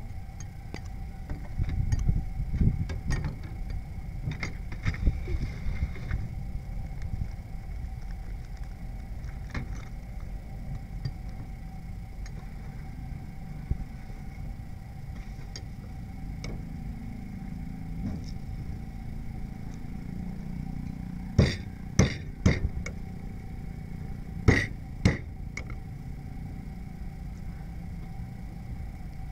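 Knife and shellfish shells clicking and knocking against a wooden cutting board on a steel table, with two quick groups of loud sharp knocks a little after two-thirds of the way through. A steady low rumble runs underneath.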